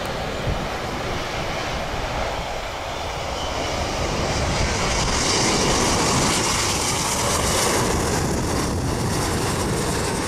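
British Airways Boeing 777 jet flying low overhead with its landing gear down, its engine noise building to a loud rushing sound with a strong high hiss about halfway through.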